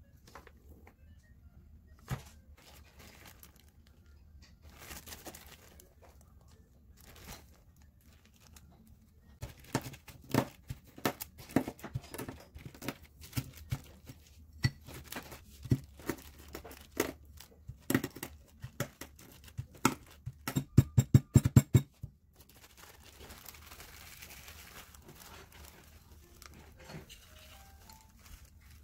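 Whole almonds in a plastic bag being crushed with a plastic bottle: a long series of sharp, irregular knocks and crunches, ending in a fast run of blows, with the bag crinkling. A quieter, even rustle follows near the end.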